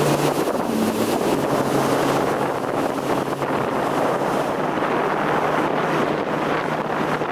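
Jet ski engine running steadily at speed, with wind buffeting the microphone and the rush of water spray.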